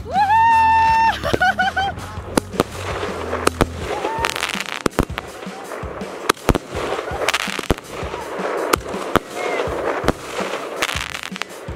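Fireworks going off: a long run of sharp, irregular bangs and crackles. The run opens with a loud high note held for about a second, followed by three short ones.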